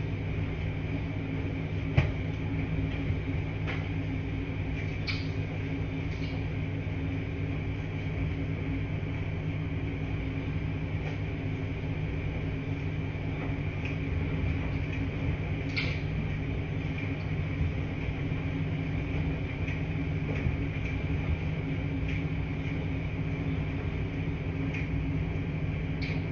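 Steady low hum of laundry machines running, with a few light clicks and knocks scattered through it, the sharpest about two seconds in.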